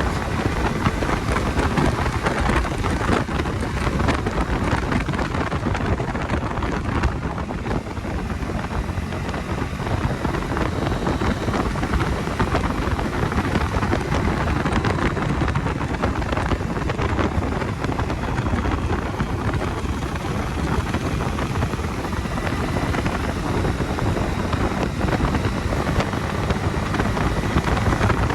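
Bajaj Dominar 250 motorcycle's single-cylinder engine running steadily while riding, under heavy wind noise on the microphone.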